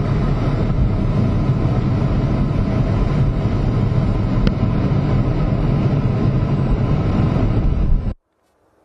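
Steady cockpit noise of a MiG-29 in flight: its twin turbofan engines and the rushing airflow heard from inside the canopy. There is one faint click midway, and the noise cuts off suddenly about eight seconds in.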